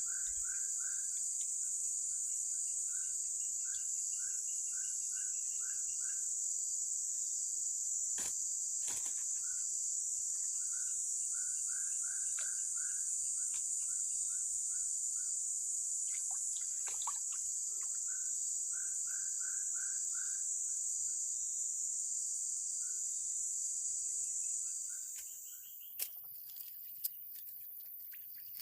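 Steady high-pitched insect drone that fades out about 25 seconds in. Under it, runs of short chirping notes repeat every few seconds, and there are a few sharp clicks.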